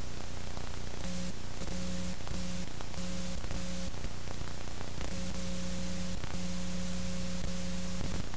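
Steady hiss of recording noise with a low electrical buzz that cuts in and out several times.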